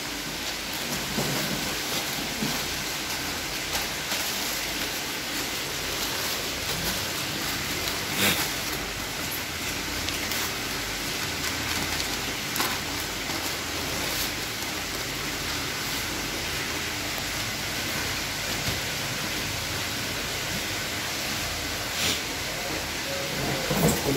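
A steady hiss with a few short crackles of newspaper as a lobster is wrapped in sheets of newsprint.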